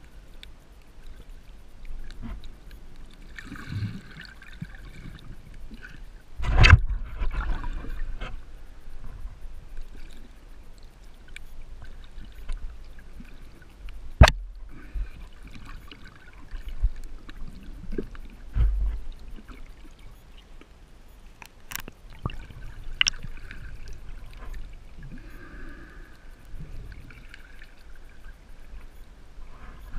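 Muffled underwater sound from a camera held below the surface: a steady low rumble of moving water with a faint hiss, broken by a few sharp knocks.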